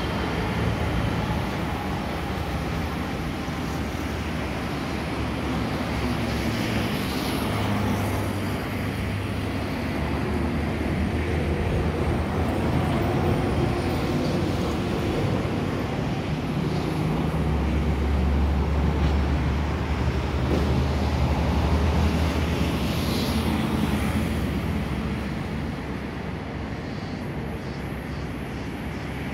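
Steady low rumble of an Airbus A320's jet engines on final approach, heard from the ground and mixed with road traffic noise. It swells a little past the middle, where a deeper drone comes in, and eases near the end.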